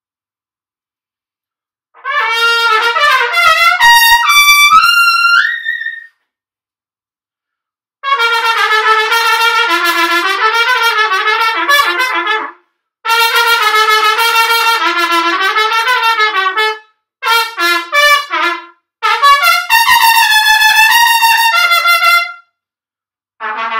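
Solo trumpet played with fast single-tongued articulation: an opening phrase climbing into the top register, then several rapid étude-style runs of short notes separated by brief pauses.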